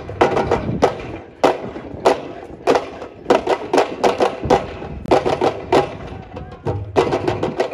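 A group of drums played together in a brisk rhythm of sharp strikes, single hits about every half second broken by quick flurries of strokes.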